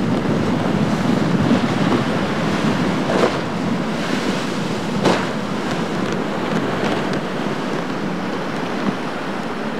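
Rough inlet surf washing and breaking, with wind buffeting the microphone. There are two louder splashes, about three and five seconds in.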